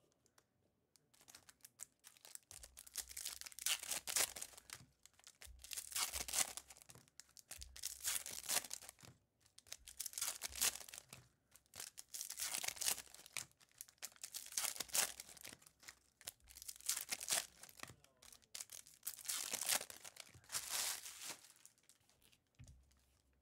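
Trading card packs being opened and handled: wrappers tearing and crinkling and cards sliding against each other. It comes in repeated rustling bursts every second or two, with a few soft low bumps.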